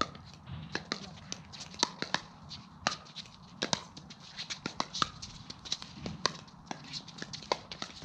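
Pickleball paddles striking the hard plastic ball during a doubles rally: sharp pops at irregular intervals, some louder and some fainter.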